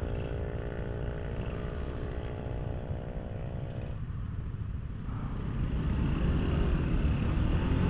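Small motor scooter engines idling steadily at a stop, including a Honda scooter's single-cylinder engine. The steady idle note drops out about four seconds in, and from about five seconds the engine sound climbs as the scooters pull away.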